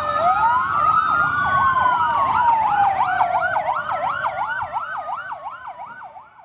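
Several emergency-vehicle sirens sounding together: a fast yelp cycling about three times a second over slower wails sweeping up and down, fading out near the end.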